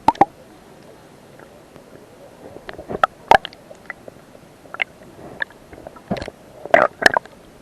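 Muffled splashes of sea water against an action camera's waterproof housing. The splashes come irregularly, in small clusters, over a low steady hiss.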